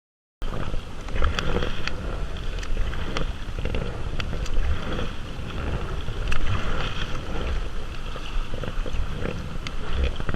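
Water splashing and lapping around a kayak on the river, with scattered small splashes and wind rumbling on the microphone. It begins suddenly after a moment of silence.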